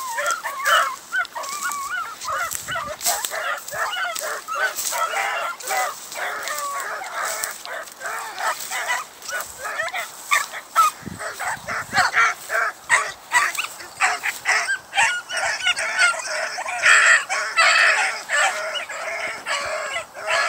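A pack of beagles baying together on a running chase, many overlapping hound voices calling without a break. The calls are the hounds giving mouth as they run the track, with big full voices.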